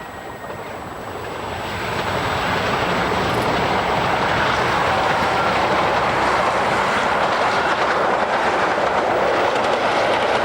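Passenger train running on the rails, a steady rush of wheel and rail noise that grows louder over the first few seconds as it comes closer, then holds.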